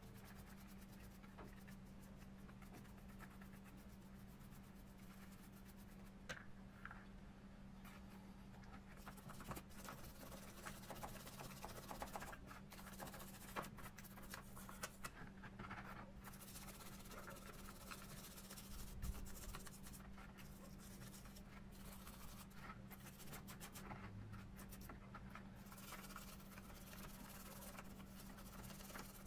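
Small bristle brush scrubbing a small metal speedometer bracket in a pan of cleaning liquid: a faint, rapid, uneven scratching, over a steady low hum.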